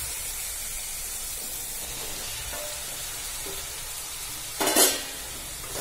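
Onion-tomato masala sizzling steadily in a kadhai as raw chicken pieces go in. Near the end there is one short, loud burst of noise.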